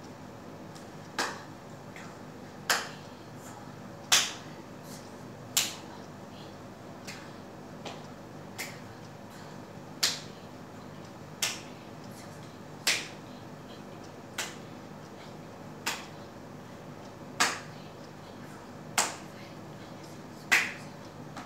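Single sharp hand claps about every one and a half seconds, marking the pace of a warm-up exercise, with a few softer ones around the middle. A steady low hum runs underneath.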